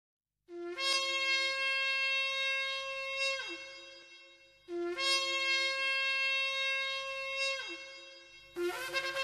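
Shofar (ram's horn) blown in two long blasts. Each starts on a short low note, jumps up to a held higher note and slides down in pitch as it ends. A third blast begins near the end with a quick wavering.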